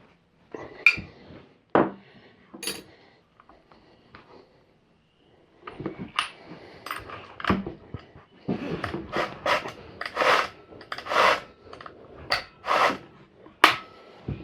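Clinks, knocks and rubbing of metal tools and chainsaw parts being handled during assembly. A few separate clicks come first, then a denser run of sharp knocks and scrapes through the second half.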